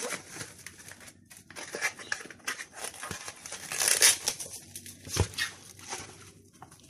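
Plastic cling film and a meat tray crinkling and rustling as a pack of minced meat is turned out into a plastic bowl, with a thump a little after five seconds in.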